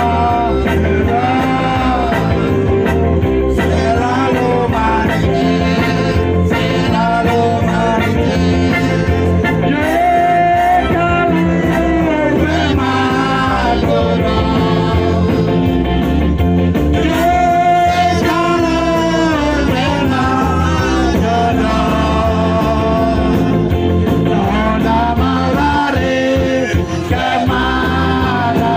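Loud dance music with a singer's melody over a steady beat, playing without a break.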